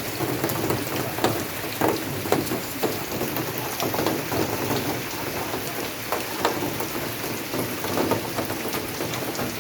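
Steady rain falling, with heavy drops striking a surface irregularly, several hits a second.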